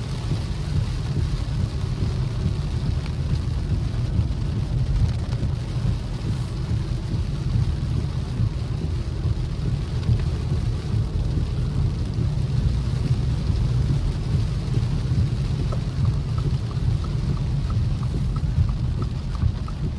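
Heavy rain falling on a moving car, heard from inside the cabin as a steady, even rush over a dense low rumble of the car and its tyres on the wet road. A faint, regular ticking comes in near the end.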